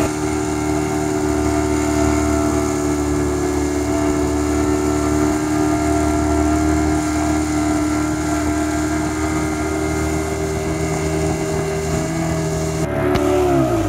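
Speedboat outboard motor running at steady high revs, with water and wind rushing past the hull. About a second before the end its pitch drops sharply as the throttle is pulled back.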